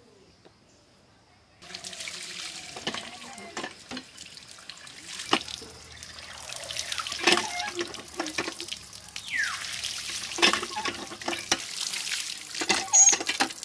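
Water gushing and splashing from a hand pump's spout as goat intestines are rinsed by hand under the stream. It starts about two seconds in, and the pump being worked adds repeated knocks and clanks.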